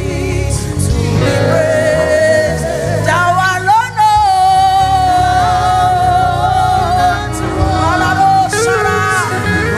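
Gospel worship song: a voice sings long held notes over instrumental accompaniment with a steady bass, one note held for about three seconds in the middle.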